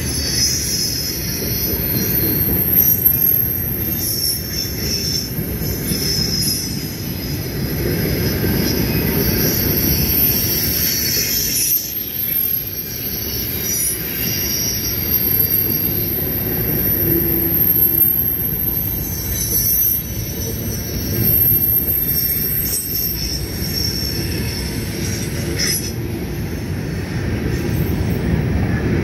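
Grain train of covered hopper cars rolling past close by: a steady heavy rumble of wheels on rail, with high-pitched wheel squeal rising and fading over it.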